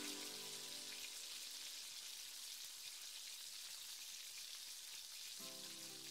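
Sliced onions, garlic and ginger frying in oil in a pan: a faint, even sizzle. Soft background music stops just after the start and comes back near the end.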